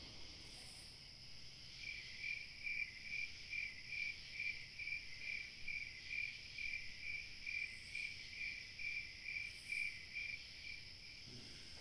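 A cricket chirping in a steady rhythm, about two or three chirps a second, starting about two seconds in and stopping near the end, over a faint, steady, high-pitched night-insect hum.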